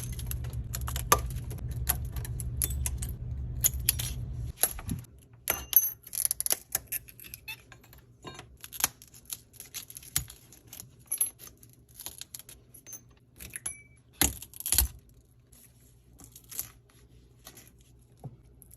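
Cracked iPhone 12 Pro back glass being broken away from the phone's frame, with irregular sharp clicks and small glassy, metallic clinks as shards come loose. A steady low hum runs underneath and stops about four and a half seconds in.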